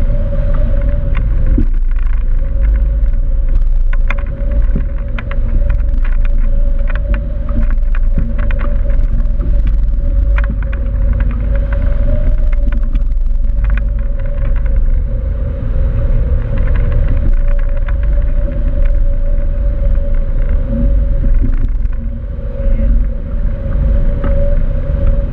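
Wind rushing over a hang glider in flight and buffeting a wing-mounted camera microphone: a loud, steady low rumble with a steady hum and many quick fluttering ticks.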